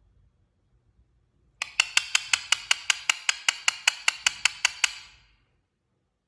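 A parrot making a rapid series of sharp clicks, about six a second, for roughly three and a half seconds, starting about a second and a half in.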